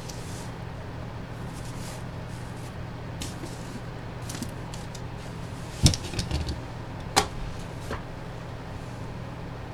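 Objects handled on a table: light clicks, then a sharp knock about six seconds in with a few small rattles after it, and another knock about a second later, over a steady low hum.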